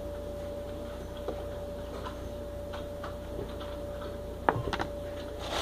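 A banana being peeled and broken by hand over a plastic Vitamix blender jar: faint handling ticks, then a few sharp knocks close together about four and a half seconds in as pieces drop into the jar. A steady faint hum runs underneath.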